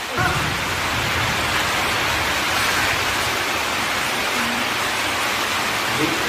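A steady, even rushing hiss with no distinct strikes or rhythm, like heavy rain.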